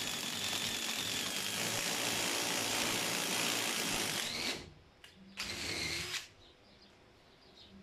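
Cordless impact driver turning a 10 mm combined drill-and-tap bit into a pre-drilled hole in a steel plate, cutting a thread, and stopping about four and a half seconds in. A second short run of under a second follows about a second later.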